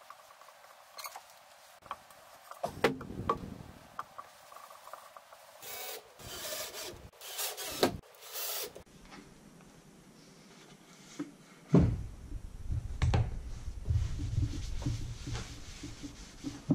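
Knocks and handling of a wooden end-grain cutting board, then a cordless drill run in several short bursts at the board's corner, driving in screws for rubber feet. Near the end a cloth rubs over the walnut board, with low thumps as it is wiped.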